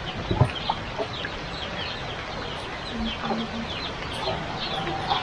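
Chickens clucking, with many short, high, falling peeps, over the steady hiss of heavy rain.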